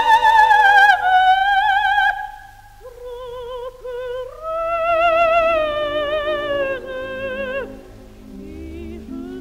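Operatic soprano singing an aria with orchestra, long held notes with a wide vibrato. The voice stops about three-quarters of the way through, leaving the orchestra playing softly.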